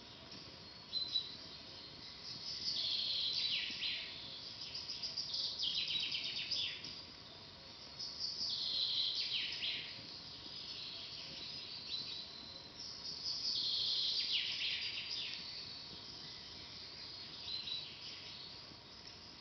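A songbird singing a fast trilled phrase that falls in pitch, repeated about every four to five seconds, with one sharp pop about a second in.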